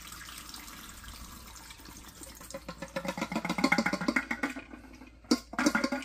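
Water poured from a dehumidifier's plastic collection tank, splashing and trickling into a sink drain, swelling louder a few seconds in. A couple of sharp knocks near the end.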